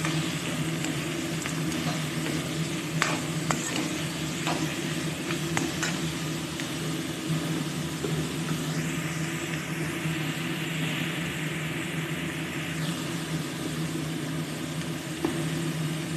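Chopped chicken sizzling as it fries in hot mustard oil in a kadai, with a few clicks of a spatula stirring it and a louder stretch of sizzle in the middle, over a steady low hum.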